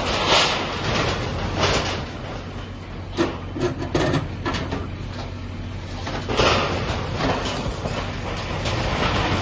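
JCB backhoe loader's diesel engine running steadily while its bucket breaks up a shop, with crashes and scrapes of metal sheeting and debris, a cluster about three to four seconds in and another loud one past six seconds.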